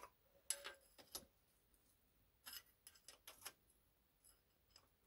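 Faint, scattered metallic clicks and clinks of a steel open-ended spanner and the steel compound slide of a small lathe being handled, some with a brief high ring.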